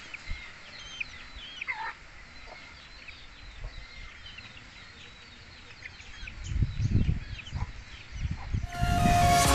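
Flock of young native chickens peeping and clucking as they forage, with many short, high calls that fall in pitch and one louder falling call about two seconds in. Low rumbles come in around seven seconds, and electronic music starts near the end.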